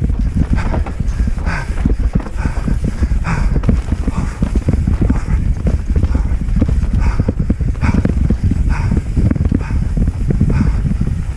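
Mountain bike clattering at speed down a rough dirt trail: the chain, frame and wheels knock and rattle without a break over roots and bumps, over a steady low rumble.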